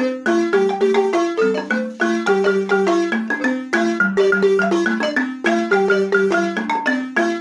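Wooden-keyed African xylophone played by two people with wooden mallets. Quick struck notes form a melodic riff that repeats about every two seconds.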